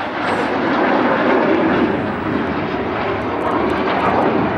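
A Red Arrows BAE Hawk T1 jet flying a display: the steady rush of its Adour turbofan engine, swelling slightly about a second in.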